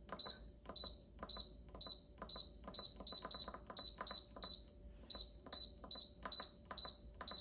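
Instant Pot Duo Plus control panel beeping at each press of the minus button: a short high beep with a click, about twice a second, pausing once about halfway through, as the pressure-cooking time is stepped down one minute per press.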